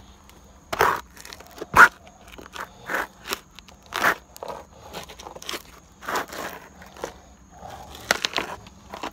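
Worn rubber soles of Timberland boat shoes scraping and scuffing on a rough concrete step: a run of irregular scrapes and knocks, the loudest a sharp hit about two seconds in.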